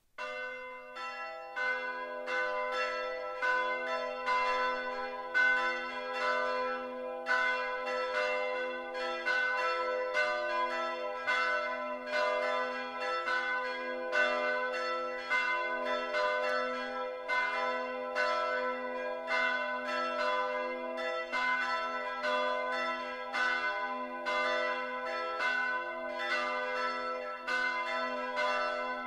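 Church bells pealing: a quick, even run of strikes that ring on into one another, starting abruptly.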